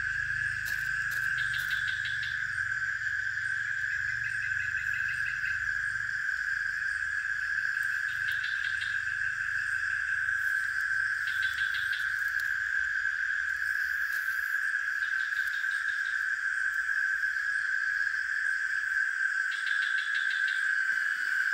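Night insect chorus: a continuous high, steady drone, with a short, higher pulsing trill that repeats every three or four seconds.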